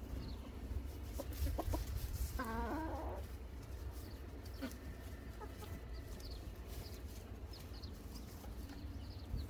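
Chickens clucking, with one louder run of quick, stepped clucks about two and a half seconds in.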